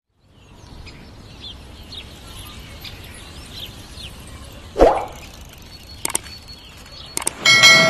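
Layered sound effects: birds chirping softly over a faint outdoor background, then a single water-drop plop about five seconds in. Two sharp mouse clicks follow, and a ringing chime starts near the end.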